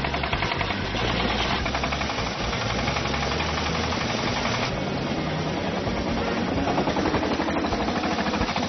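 Engine of a self-built chili harvester running hard with a rapid, even knocking pulse, straining to drive the machine out of the mud where its wheels are stuck.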